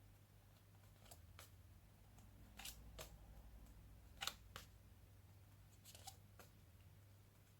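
Near silence: room tone with a steady low hum and faint clicks of cardboard flashcards being flipped, coming in pairs about every second and a half.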